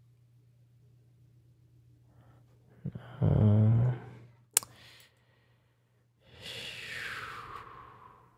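A short hummed vocal sound, a sharp click a second later, then a long breathy exhale whose pitch falls, over a low steady electrical hum.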